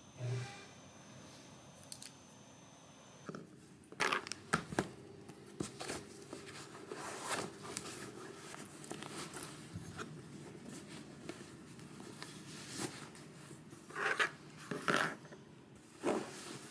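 Backpack being packed and handled at a wooden desk: fabric rustling and scraping with sharp knocks and clicks of items going in, starting about four seconds in, loudest near the end.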